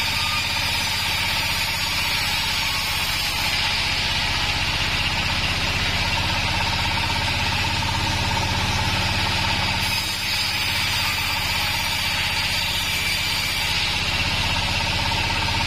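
Stationary engine of a band sawmill running steadily, a low even engine drone with a steady whine above it.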